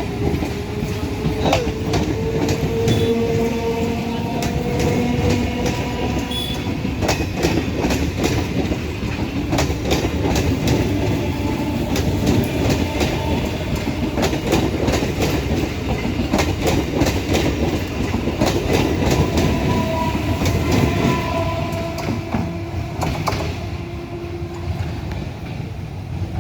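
EMU (electric multiple unit) local train running, its wheels clattering rapidly over the rail joints, with a faint steady whine under it. The sound eases off a little near the end.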